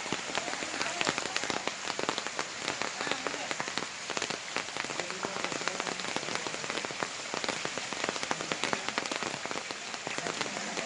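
Steady rain falling on hard surfaces, a dense patter of small drop ticks, with faint voices in the background.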